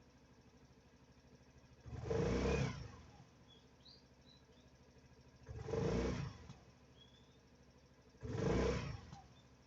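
Suzuki Salute 125 scooter's single-cylinder four-stroke engine idling quietly, blipped up three times with short throttle revs, each about two to three seconds apart.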